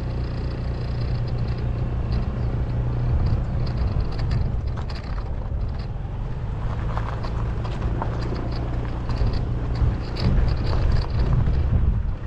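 Honda ADV150 scooter's single-cylinder engine running as it is ridden along a rough dirt and gravel track, a steady low drone. Scattered knocks and crunches from the tyres and suspension on the uneven surface come through it, a little louder and more frequent near the end.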